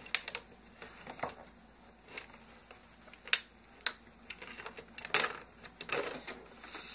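Plastic screen bezel of an Acer Chromebook 15 CB5-571 being pried off by hand: scattered sharp clicks, about eight, as its clips snap loose from the screen.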